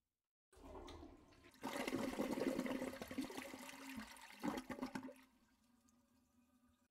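Toilet flushing: a rush of water that swells about a second and a half in and dies away about five seconds in.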